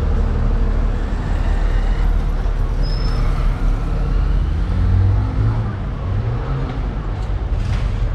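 Street traffic: car engines on the road, one of them rising in pitch as it accelerates about five seconds in.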